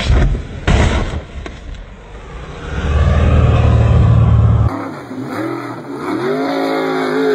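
Two sharp knocks in the first second, then a heavy low rumble about three seconds in. From about five seconds in, a jet boat's engine revs up and down repeatedly.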